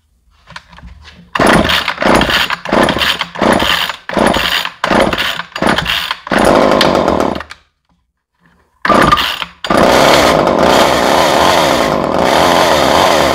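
Craftsman 2.0 two-stroke chainsaw being pull-started: it sputters in short bursts about twice a second, catches briefly about six seconds in and dies, then starts again about nine seconds in and keeps running steadily.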